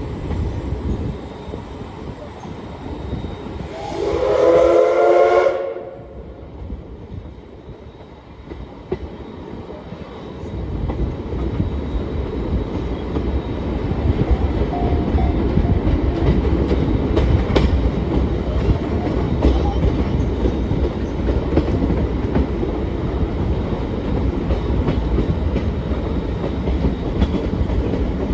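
A train whistle sounds once for about a second and a half, a slightly falling chord over a hiss. From about ten seconds in, the rumble of a moving train with rail clicks builds up and then runs steady.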